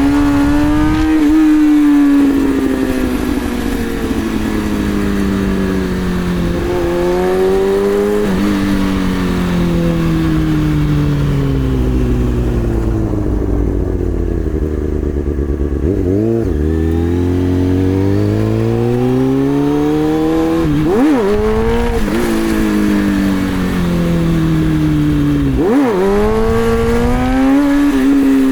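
2003 Kawasaki ZX-6R 636 inline-four engine held in first gear, its revs sinking slowly, then climbing again. Quick sharp throttle blips come a little past halfway, about three quarters in and near the end. Second gear is out from a shift-fork fault, so everything is done in first.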